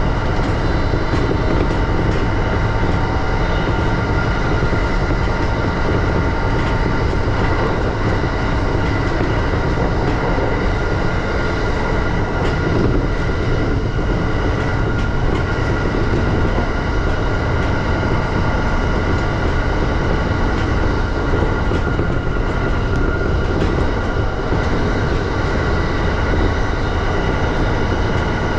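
E235-series electric train running steadily between stations, heard from inside the car: an even rumble of wheels and track with a steady hum of fixed tones above it.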